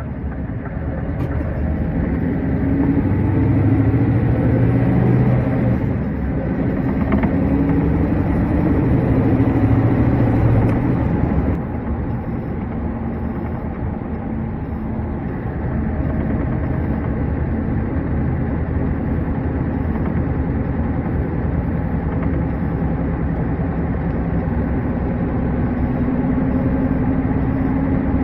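Scania S580's 16-litre V8 diesel heard from inside the cab while driving, its pitch rising twice as it pulls. About eleven seconds in it drops suddenly, then runs steadily before rising again near the end.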